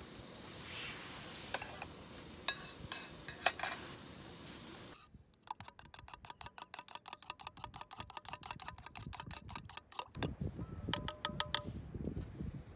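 A long metal spoon stirring soup in a metal camping mug: a fast, even clinking against the sides for about four seconds, then a few ringing taps near the end. Before that come a few louder clicks and knocks.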